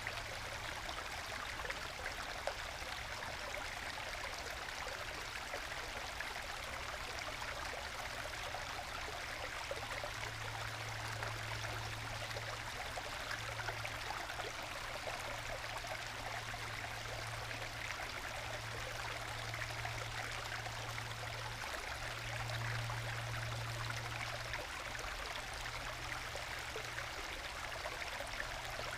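Small forest stream trickling and gurgling over low bedrock waterfalls into plunge pools, a steady gentle babble. A low hum sits underneath, stronger from about ten seconds in.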